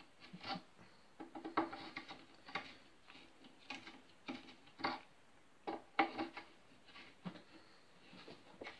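Irregular light knocks, taps and rubbing from handling and working on an acoustic guitar. Several knocks set the guitar's body or strings ringing briefly.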